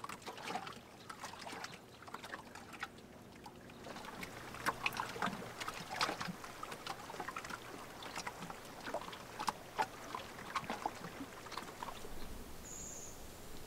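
Lake water lapping gently at the shore, with irregular small splashes and clicks. A short high chirp sounds near the end.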